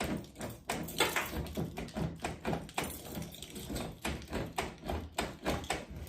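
Irregular clicks and knocks of a key being worked in the stiff manual door lock of a 1995 Nissan D21 pickup, freshly sprayed with brake cleaner; the lock is still hard to turn.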